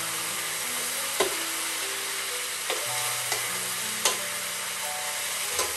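Vegetables sizzling in a hot wok as they are tossed with a metal spoon, which clicks against the pan four times. Soft background music with held low notes plays underneath.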